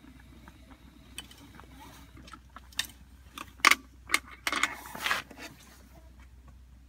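A run of sharp clicks and clatters from small hard objects being handled, about a dozen in a few seconds, the loudest a little past halfway.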